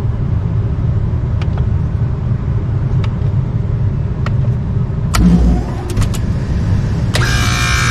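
Steady low rumble with a few sharp clicks, then about seven seconds in the Lennox package unit's compressor starts with a harsh buzzing whine of several steady high tones. It sounds horrible, and the technician judges the compressor broken; it is running without its condenser fans.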